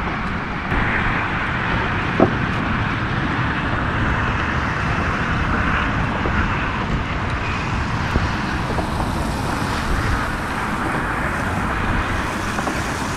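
Steady rush of passing road traffic, with a brief faint squeak about two seconds in.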